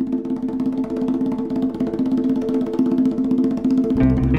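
Background music: a fast, even run of drum or percussion strokes over a held chord, with a bass line coming in near the end.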